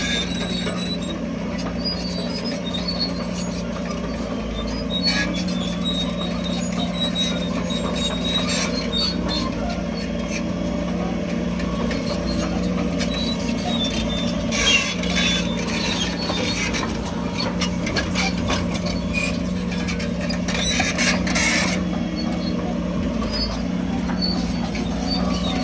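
Crawler bulldozer's diesel engine running steadily under work, with scattered high squeaks and clicks from the machinery and tracks and two short clattering spells in the second half.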